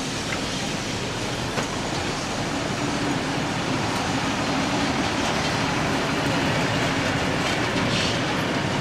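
Vintage passenger carriages of a steam-hauled train rolling past, their wheels running steadily over the track with a clickety-clack, and one sharp clack about a second and a half in.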